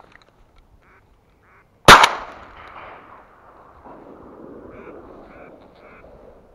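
A single loud shotgun shot about two seconds in, trailing off over about a second. A few short duck quacks come before and after it.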